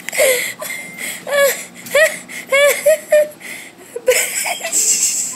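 A person laughing in a run of short, high-pitched squeals about half a second apart, then a breathy, wheezing exhale near the end.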